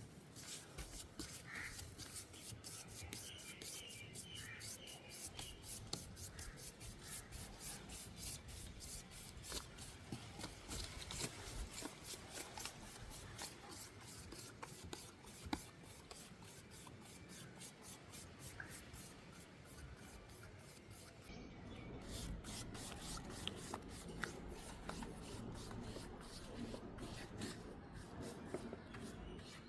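A wooden tray being rubbed by hand in quick back-and-forth strokes, about two or three a second, with a short pause about two-thirds of the way through.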